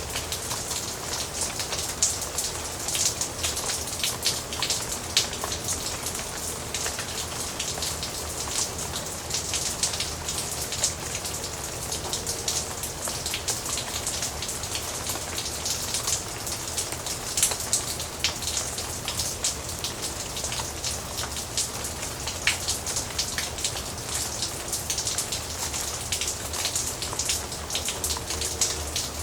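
Steady rain with dense, crisp individual drops pattering on a hard surface, a constant hiss under many sharp drop ticks.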